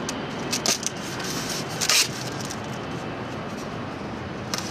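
Styrofoam boxes being shifted and slid against one another, with a short sharp scrape about two seconds in and a brief one near the end, over steady background noise.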